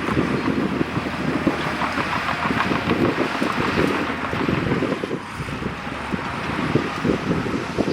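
Heavy earthmoving machinery running steadily, a diesel engine with a rapid low pulsing, with wind buffeting the microphone.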